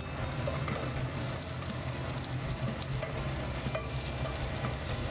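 Chopped capsicum and onions sizzling as they are stir-fried in hot oil in a pan, with a few light spatula knocks and scrapes, over a steady low hum.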